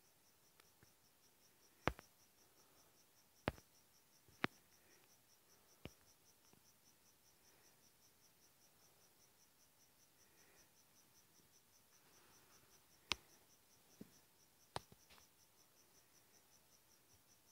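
Faint cricket chirping: a steady high trill pulsing a few times a second. Several sharp clicks are scattered through it.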